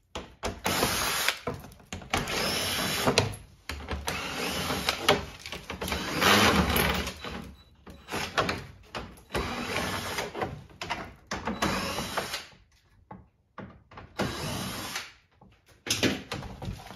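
Cordless driver whirring in repeated short bursts as it backs out the screws holding a plastic lower engine cover, followed by the plastic splash shield being worked free with scraping and rustling.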